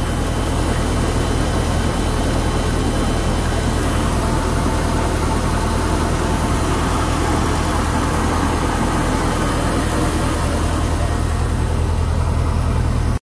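Volvo Penta 7.4-litre V8 inboard boat engine idling steadily and quietly, heard close at the open engine hatch, on its first run after an oil change with synthetic 10W-40.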